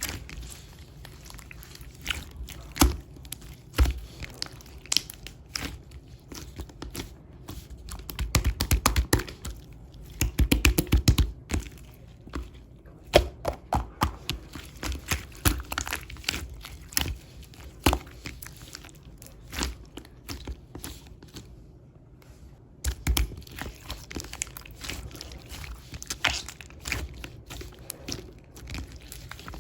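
Close-up crinkling and crackling of something being handled and squeezed, a long run of sharp little clicks with a few denser clusters.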